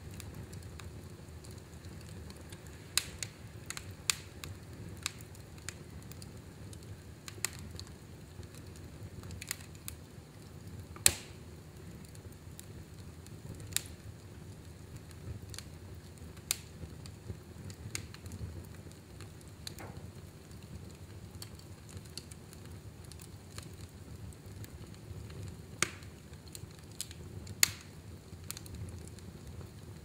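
Wood logs burning in a fireplace: a steady low rumble of flame with scattered sharp crackles and pops, the loudest about 11 seconds in and again near the end.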